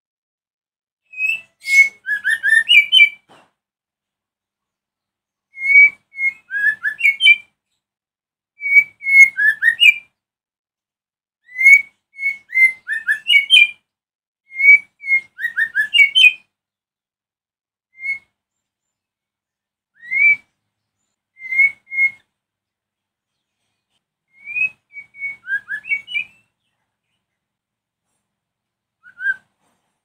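White-rumped shama (murai batu) singing: short phrases of clear whistled notes and quick trills, a few seconds apart, thinning to single notes in the latter half.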